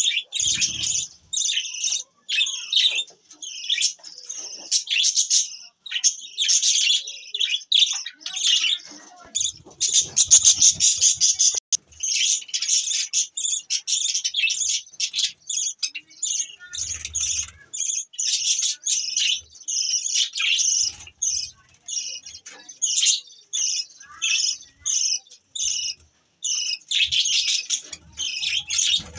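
Pet budgerigars chirping and chattering, a nearly unbroken stream of short, rapid, high calls.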